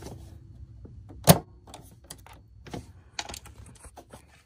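Small clicks and taps of sewing-machine parts being handled around the presser foot, with one sharp, louder click about a second in.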